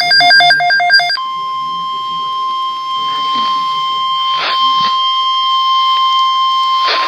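Weather radio alert: a rapid run of alternating electronic beeps, then about a second in the steady single-pitch 1050 Hz NOAA Weather Radio warning alarm tone, which holds unbroken. A faint voice and a couple of short crackles of static sound under the tone.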